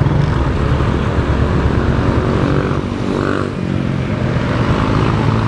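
Motorcycle engine running steadily at low speed, heard from the rider's seat, with a steady rushing noise over it.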